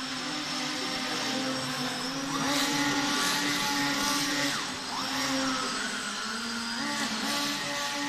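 Small electric motor of a radio-controlled model craft, a steady whine whose pitch rises and falls several times as the throttle changes.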